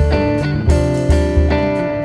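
Jazz band playing live: archtop electric guitar over electric bass, with a few light drum kit hits.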